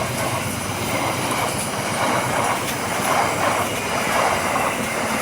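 Passenger train running past on the rails: a steady wheel-on-rail roar with a regular clatter from the coaches' wheels and a faint thin wheel squeal.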